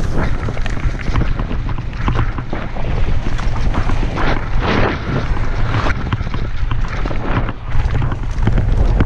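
Mountain bike descending a trail at speed: wind buffets the microphone with a steady low rumble, over a constant clatter of the tyres on the trail surface and the bike rattling. The noise swells briefly about halfway through.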